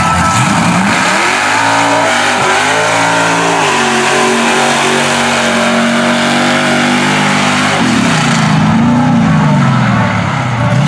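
Mud truck on tractor tires launching at full throttle: the engine revs up steeply, dips briefly about two seconds in, then holds at high revs. In the last few seconds the revs rise and fall twice.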